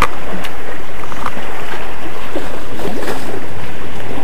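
Loud, steady rush of wind and sea surf on a small camera's microphone, with a few sharp clicks in the first second or so.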